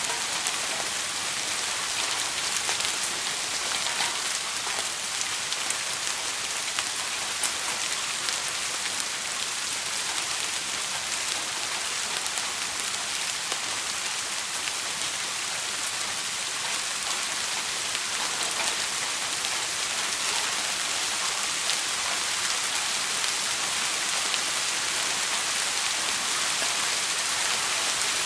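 Steady rain falling, a dense even hiss with many small scattered drop ticks.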